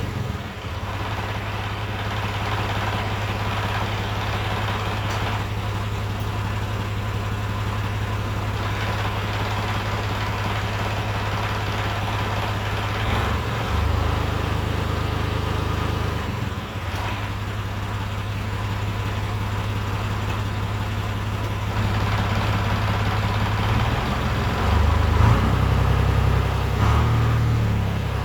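John Deere 1950 tractor engine running at idle with the rear PTO engaged, the PTO making a clatter; the owner finds the clatter seems to go away when a little throttle is given. Near the end the engine speed rises and falls a few times.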